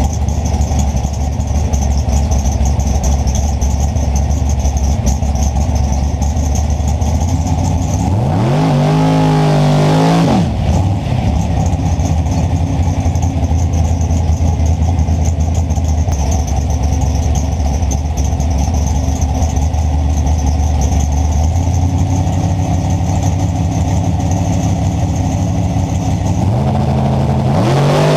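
Big-block Chevrolet drag car engine idling loud and steady, revved up sharply about eight seconds in, held for a second and a half and dropped back to idle, then revved up again near the end.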